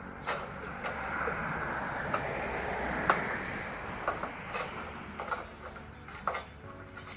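Long pole sickle working at an oil palm bunch high in the crown: a scraping, rustling hiss among the fronds with scattered sharp clicks and knocks as the blade hacks at a bunch that is stuck fast, the loudest knock about three seconds in.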